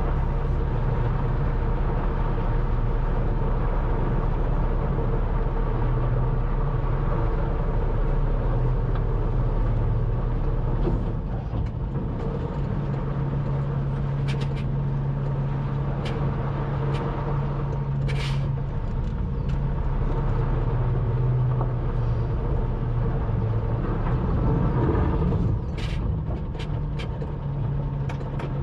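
Scania R580 truck's V8 diesel engine running steadily at low revs during slow manoeuvring, its note shifting about a third of the way through. A few short sharp clicks and hisses sound in the second half.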